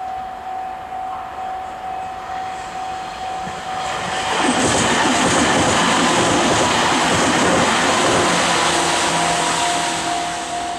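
Japanese level-crossing warning bell ringing steadily at about two strokes a second; about four seconds in, a train passes over the crossing, its loud rumble and wheel noise lasting about six seconds and drowning out the bell, which is heard again near the end.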